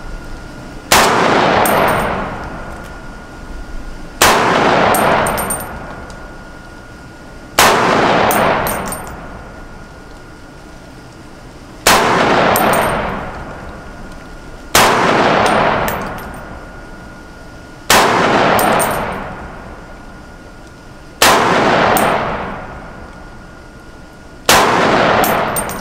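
Springfield Armory Saint Victor .308 semi-automatic rifle firing single shots at a slow, steady pace, eight shots about three to four seconds apart, each followed by a long echoing tail.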